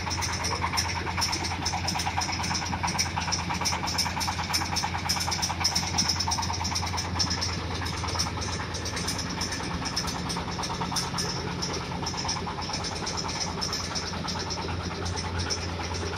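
Engine-driven corn sheller for unhusked maize running steadily with nothing being fed in: a constant engine hum with a fast, even ticking over it.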